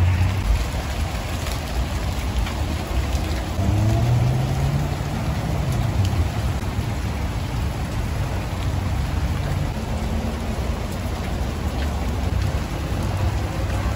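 Steady rain falling on garden plants and leaves. A low rumble sits underneath, strongest at the start and rising in pitch about four to five seconds in.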